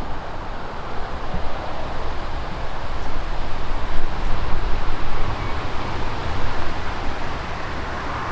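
Wind buffeting the microphone: a gusty rumble and rushing noise that swells about four seconds in and eases again.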